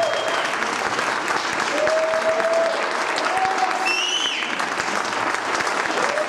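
Audience applauding steadily, a dense patter of many hands clapping. A few brief held calls rise above the clapping, one a high falling whistle-like call about four seconds in.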